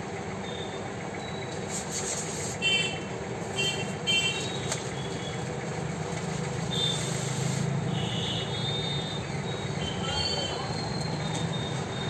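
Steady low traffic rumble from a busy road, with rubbing and short high squeaks as a ceiling fan's motor housing is handled and set into its polystyrene packing tray.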